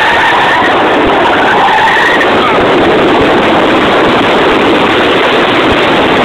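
Mazda RX-8's twin-rotor rotary engine running hard during a track slide, heard from inside the cabin, loud and rough. A wavering high squeal, likely the tyres, runs through the first two seconds.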